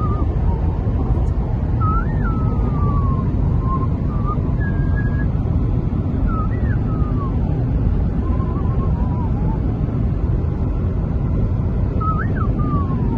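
Steady road and engine rumble inside a car cabin at highway speed. A thin, wavering whistle-like tone rises and falls in short phrases every couple of seconds above it.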